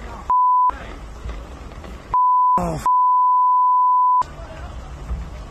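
Censor bleeps over swearing: a steady single-tone beep with the rest of the sound cut out beneath it. There is a short one near the start, another about two seconds in, and a longer one of over a second from about three seconds in. Between them a phone recording's low, noisy outdoor rumble comes through, with a brief shout just before the long bleep.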